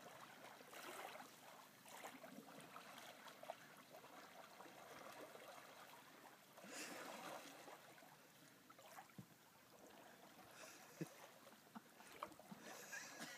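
Near silence with faint water sounds of a canoe paddle dipping and dripping in lake water, and a few small clicks in the second half.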